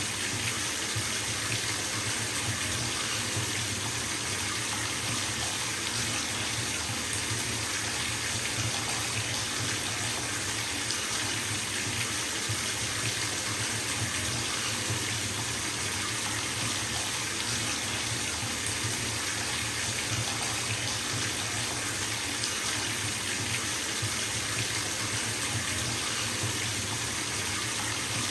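Bathtub filling from a running tap: a steady, unbroken rush of water pouring into the tub.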